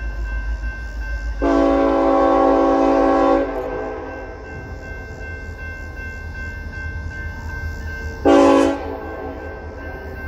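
Nathan K5LLA five-chime horn on a Union Pacific SD70AH locomotive: one long blast of about two seconds, then a short blast some five seconds later, over the steady low rumble of the approaching train.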